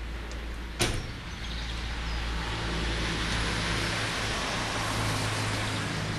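Steady outdoor background noise, a hiss over a low hum, with a single sharp click about a second in.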